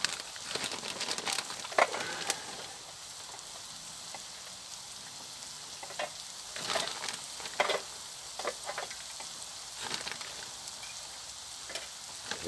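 Food sizzling in oil in a frying pan set on a grate over campfire coals, a steady high hiss, with scattered clinks and scrapes of utensils on a plate in several short clusters.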